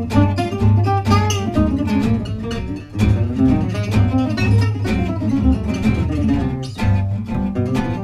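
Live acoustic trio: a lead guitar plays over a strummed rhythm guitar, with plucked upright double bass notes underneath.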